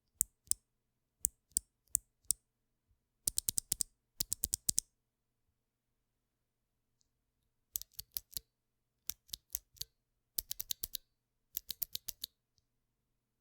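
Mechanical keyboard switches being pressed, giving sharp clicks. There are a few single presses, then quick runs of keystrokes, a pause of about three seconds near the middle, and more single presses and runs.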